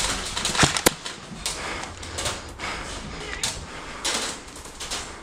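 Scattered sharp cracks and knocks at irregular spacing, the two loudest close together within the first second, from airsoft guns firing single shots and BBs striking hard surfaces.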